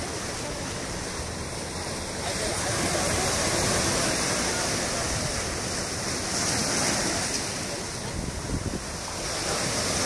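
Sea waves breaking and washing over a rocky shore: a continuous rushing surf that swells and eases as the waves come in, louder a couple of times.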